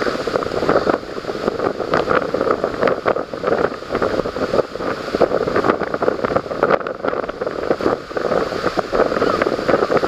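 Strong wind buffeting the microphone in uneven gusts, a dense rushing roar that rises and falls irregularly.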